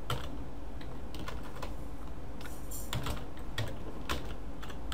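Typing on a computer keyboard: separate keystrokes at an uneven pace.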